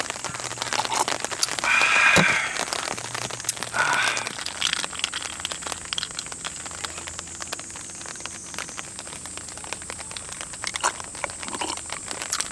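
Light rain dripping in a scattered patter of small ticks, with two short, louder gulps about two and four seconds in as a glass of lemon-squeezed non-alcoholic beer is drunk.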